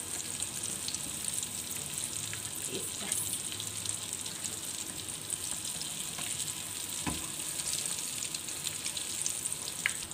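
Egg-coated chicken shami kababs shallow-frying in hot oil in a non-stick pan: a steady sizzling hiss with small crackles, and a single knock about seven seconds in.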